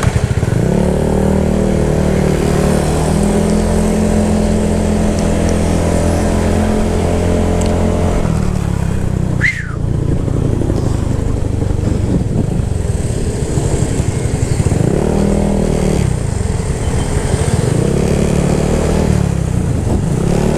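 Honda Airblade scooter engine, bored to 170cc, running through an aftermarket Yoshimura Alpha exhaust. The exhaust note holds steady at first, then rises and falls several times in the second half.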